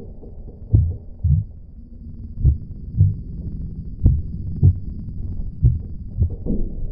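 Heartbeat sound effect: slow, low lub-dub double thumps, four pairs about a second and a half apart, over a low steady rumble.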